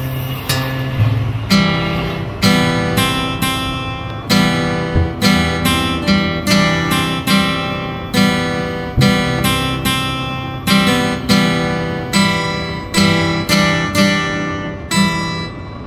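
Background music: an acoustic guitar strumming chords in a steady rhythm, about two strokes a second, stopping just before the end.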